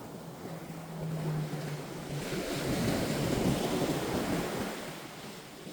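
Ocean surf: a wave breaks and washes up the beach, swelling about two seconds in and dying away near the end.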